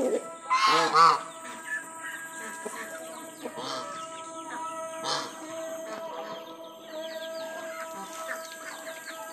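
Domestic geese honking, loudest about a second in, with chickens clucking among them.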